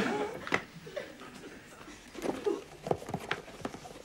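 Studio audience laughter dying away, then a quiet stretch of sparse light clicks and rustling as a paper bag is handled.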